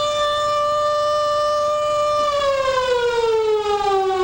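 Civil defence warning siren sounding a single steady tone, its pitch beginning to fall slowly about two seconds in.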